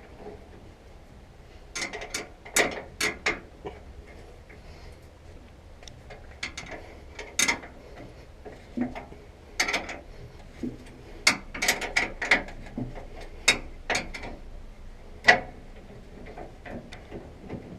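Hand ratchet wrench clicking in short bursts while bolts on a combine concave's keystock grate are worked loose, mixed with sharp metal clinks and clanks of tools on steel.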